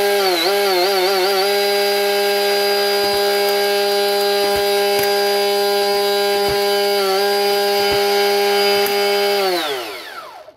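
Electric RC boat motor running on the bench, a steady whine that wavers briefly in speed near the start and again about seven seconds in. It then spins down in falling pitch and stops just before the end.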